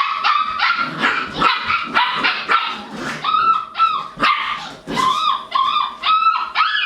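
Labradoodle puppies yipping and barking over and over, a quick run of short, high-pitched calls with some whining in between.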